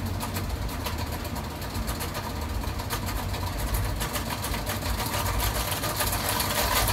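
Benchtop electric can seamer spinning a filled beer can while the first-operation (right) seaming roller is pressed in to curl the lid onto the can: a steady motor hum with a dense fine clatter that grows a little louder near the end.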